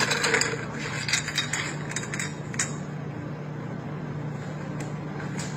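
Ice cubes clinking and rattling in a freezer's ice bin as they are scooped, in quick clicks that thin out after about two and a half seconds, over a steady low hum.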